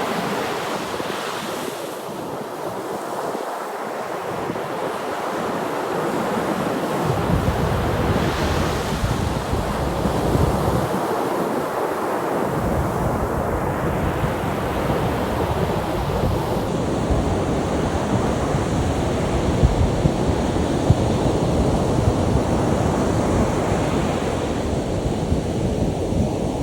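Ocean surf breaking and washing ashore, with wind buffeting the microphone. A deep wind rumble comes in about a quarter of the way through, drops out briefly, then continues.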